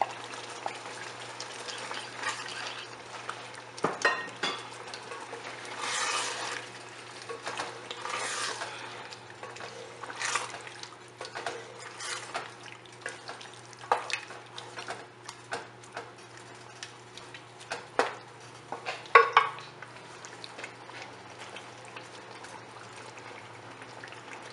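Wooden spoon stirring chunks of beef and yogurt in a large metal pot, scraping and now and then knocking sharply against the pot, over the sizzle of the meat frying on a high flame.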